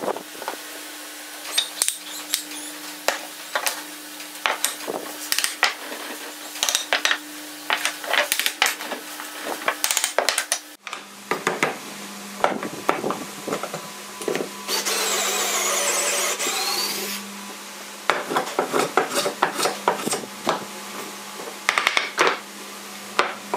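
Pine boards and blocks knocked together and set down on a wooden workbench: a long run of short wooden clacks and knocks. About two thirds through, a steady shaving rasp lasting a couple of seconds as a hand plane is drawn along a board.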